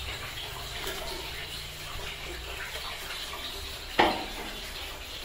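Water boiling and bubbling steadily in a large aluminium cooking pot as whole spices are dropped in. About four seconds in comes one sharp metallic clank with a short ring.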